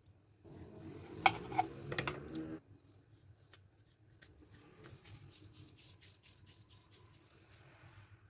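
Hands working soft wheat-flour dough on a wooden board, dividing it and rolling it between the palms into balls, giving faint rubbing and light patting clicks. In the first couple of seconds a louder, indistinct background sound covers it.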